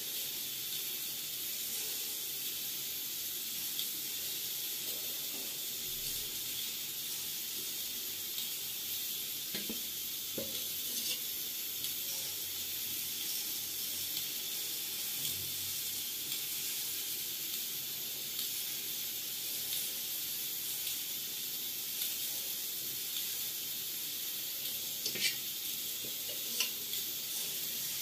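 Batter sizzling in a hot multi-cavity askaliya mould pan on a gas stove, a steady high hiss, with a few light clicks around the middle and near the end.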